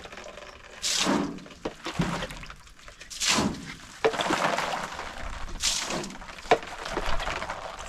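Water splashed onto a freshly plastered wall to cure it, hitting three times about two seconds apart.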